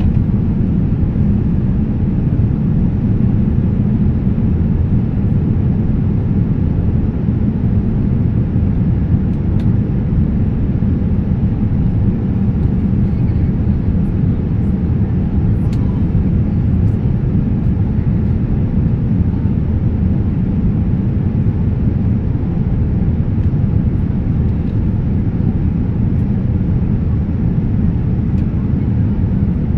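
Steady cabin noise inside a Boeing 787-9 airliner in flight on its approach: an even, low rumble of airflow and engines heard through the fuselage, with no change in level.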